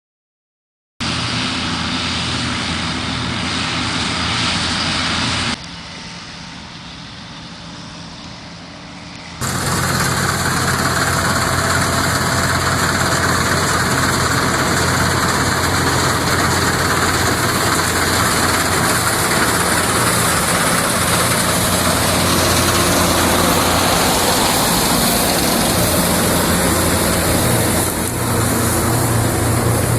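Vintage Dania 900 self-propelled combine harvester running, its engine and machinery giving a steady, loud mechanical din. It starts about a second in, goes quieter for about four seconds, then runs louder and steady.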